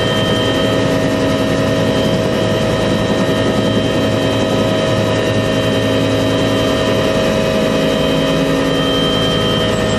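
UH-1 Huey helicopter running steadily, its turboshaft engine and drive giving several steady whining tones over a constant noise, with no change in pitch.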